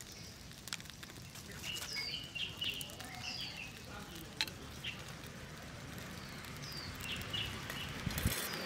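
Small wood fire burning, with scattered sharp crackles and pops, while birds chirp repeatedly in the background. Near the end come a few low knocks as metal tongs are pushed in among the burning wood.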